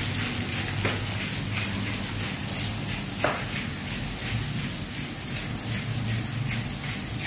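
Salt shaker shaken over a pan of spaghetti: a run of light, irregular ticks and rattles as the salt goes on, over a steady low hum.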